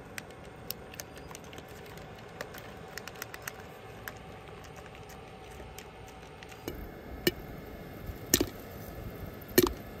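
Popcorn kernels dropped by hand into a stainless steel electric kettle pot, a scatter of small ticks and clinks. About seven seconds in, three louder knocks follow, roughly a second apart.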